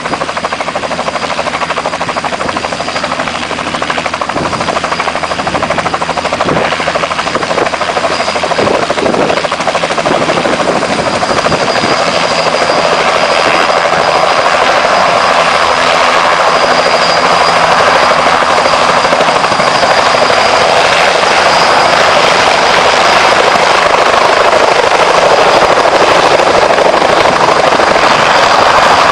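Helicopter sound effect: steady rotor and engine noise with a thin, high whine over it, growing gradually louder.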